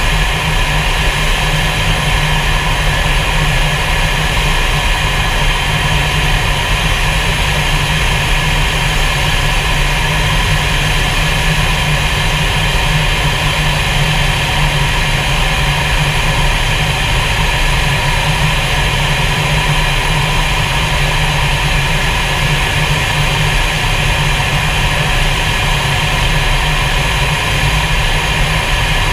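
Steady, unchanging engine and airflow noise inside a fighter jet's cockpit in flight.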